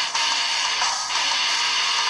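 A music ringtone playing through the Samsung Vibrant's built-in loudspeaker, thin with little bass.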